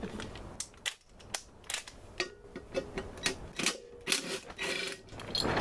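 Hand ratchet clicking in short irregular runs as a 12 mm bolt is undone from the intake manifold's hose bracket, with metal tools clinking.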